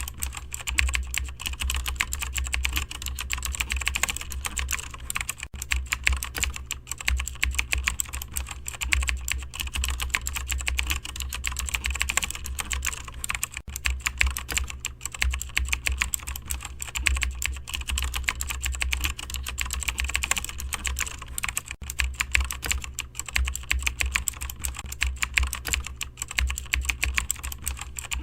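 Continuous fast typing on a computer keyboard: a dense, uneven stream of key clicks over a steady low hum.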